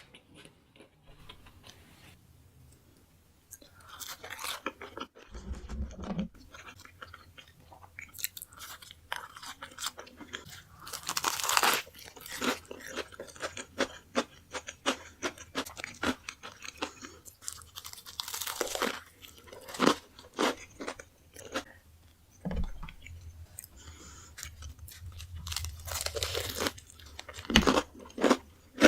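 Close-miked eating of a burger: crunchy bites and wet chewing, coming in repeated bursts after a quiet first few seconds, with a couple of dull low thuds.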